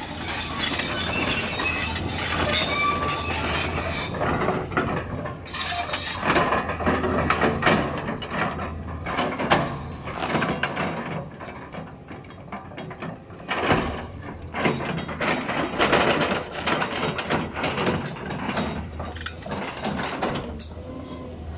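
Caterpillar 320D L tracked excavator's diesel engine running steadily under hydraulic load, with repeated clanks, knocks and creaks as its bucket digs at and prises out a tree root.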